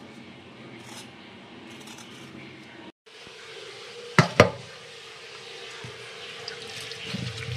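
Two sharp clinks of a steel bowl against a stainless steel sink, a quarter second apart, followed by tap water running onto sliced potatoes in the bowl, growing louder near the end.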